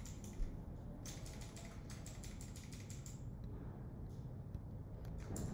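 Scattered light clicks from computer keys and buttons, over a steady low hum. The clicks come thickest in the first three seconds and again near the end.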